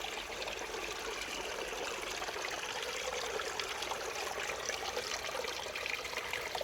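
River water running and splashing over rocks, a steady rush.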